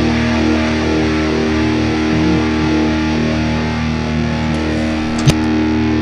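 Rock music with distorted electric guitar holding a sustained chord. One sharp bang comes near the end.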